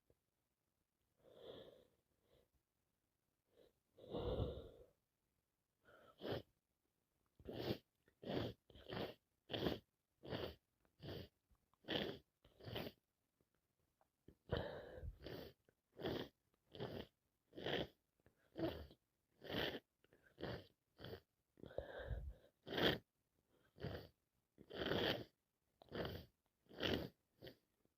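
A woman with a head cold sneezing over and over: a few separate bursts at first, then a long run of short, sharp sneezes about two a second from several seconds in.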